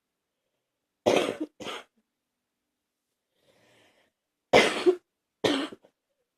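A person coughing: two short coughs about a second in, a faint breath, then two louder coughs near the end.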